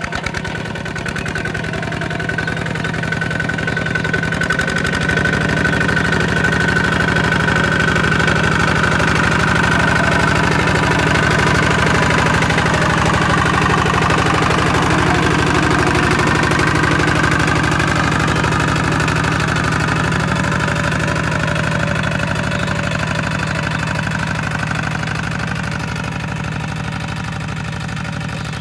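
Single-cylinder diesel engine of a two-wheel walking tractor running steadily under load as it pulls a plough through paddy soil. It grows louder toward the middle and eases off a little near the end.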